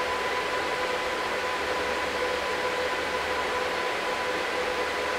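Cooling fans of a powered-up GPU mining rig, its four large front case fans and graphics card fans, running at full speed: a steady, even rush of air with a steady whine on top. All of the newly built rig's parts have come on.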